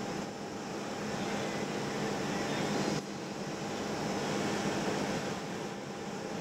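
Steady traffic noise on a city street, with a constant low hum beneath it. The sound changes abruptly about three seconds in.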